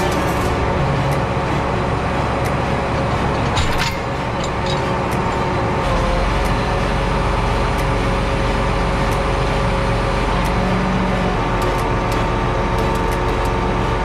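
John Deere 8R tractor's diesel engine idling steadily, heard from inside the cab, with a few light clicks; its low note shifts slightly about six seconds in.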